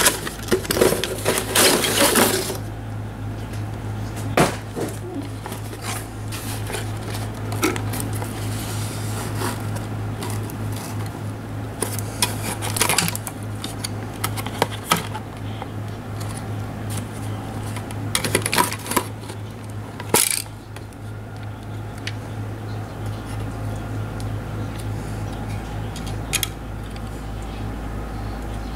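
Handling noise from unpacking a plastic toy airliner from its cardboard box: scattered bursts of scraping and rustling with clicks and knocks of plastic against cardboard, the busiest in the first couple of seconds, over a steady low hum.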